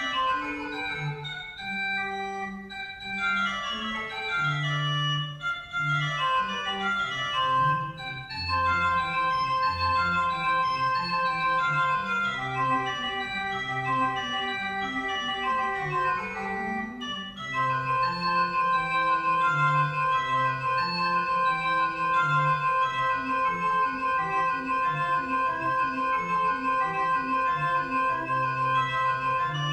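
Organ playing the closing voluntary: quick runs of notes over a moving bass line, then from a little past halfway a long held high note above the moving lower parts.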